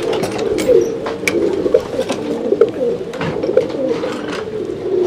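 Many domestic pigeons cooing together, their overlapping coos going on without a break, with scattered sharp clicks and knocks.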